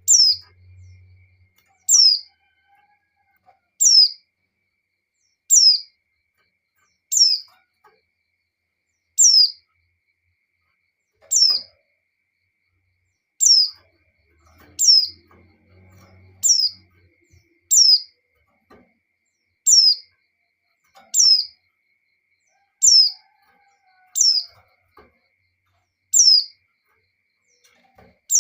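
Female white-eye (pleci) calling: a short, high note sliding downward, repeated about every one to two seconds. It is a call to males, used as a lure to set male white-eyes singing.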